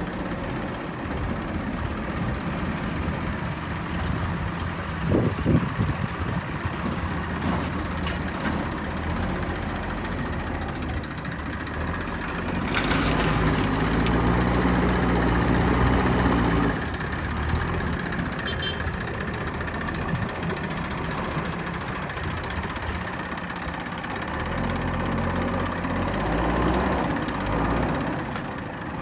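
Diesel engine of a JCB backhoe loader running steadily, revving up under load for a few seconds in the middle and again near the end, with a few sharp clanks about five seconds in.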